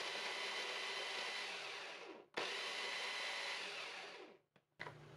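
Braun electric chopper motor running in two bursts, chopping red chili peppers in its plastic bowl. It stops briefly about two seconds in, runs again, and winds down shortly before the end.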